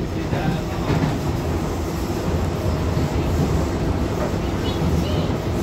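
Docklands Light Railway train running along the line, heard from inside the carriage as a steady rumble of wheels and running gear.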